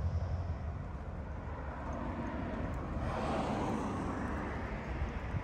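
Outdoor traffic ambience: a steady low rumble, with a passing vehicle that swells and fades about three to four seconds in.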